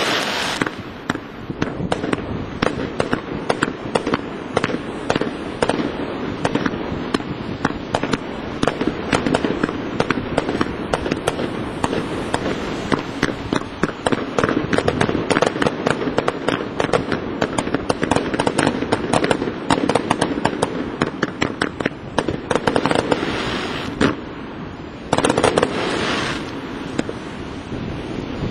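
Fireworks display: a dense, continuous run of bangs and crackles from shells and comets bursting, with heavier bursts at the start and again about three-quarters of the way through.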